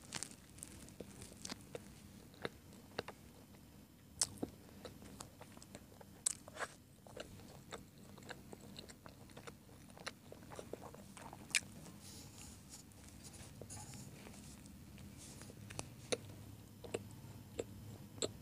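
Close-miked chewing of a hot dog sandwich, soft bread and sausage, with irregular sharp mouth clicks scattered throughout.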